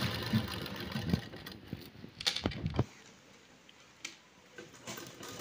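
Sewing machine running as it stitches beaded lace onto fabric, with a few sharp clicks, then stopping about three seconds in.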